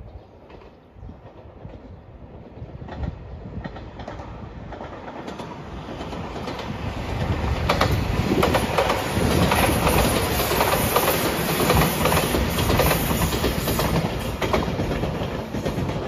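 JR Shikoku 8000 series five-car limited express electric train passing close by. It builds up over the first few seconds into a loud run of wheel clatter over the rail joints, then eases slightly near the end.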